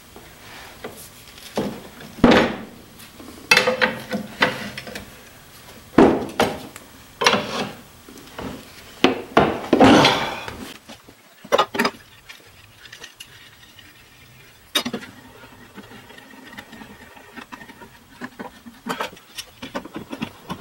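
Steel leaf-spring pack being pried at with a long metal bar on a wooden bench: irregular scraping and clanking of the leaves and bar, heaviest in the first half, then a few sharp clinks and a light metallic clatter near the end as a C-clamp is set on the spring. It is an attempt to pull the spring pack apart for repacking.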